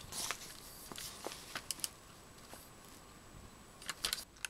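Light clicks and knocks from a Hama Star 62 tripod being handled, its metal legs and plastic fittings tapping together over soft rustling, with a quick run of clicks near the end.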